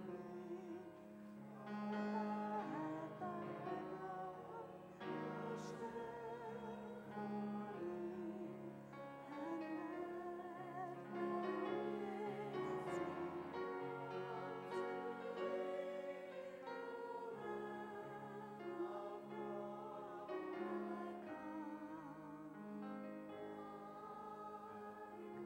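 A solo voice singing a slow piece with wide vibrato over held keyboard chords in the low register.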